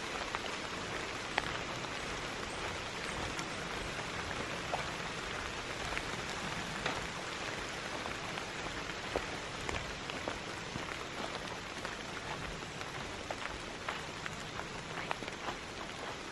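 Rain coming down hard, a steady patter with scattered louder individual drop hits close by.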